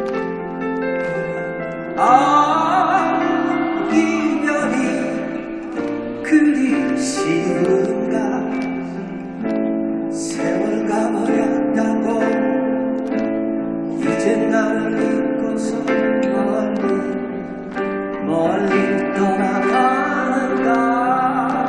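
Live performance of a Korean pop ballad: a male singer's voice over sustained band backing, sung in long, gliding phrases.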